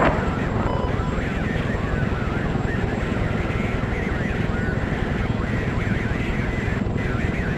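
Steady drone of an aircraft in flight: an even rumble with hiss that does not change.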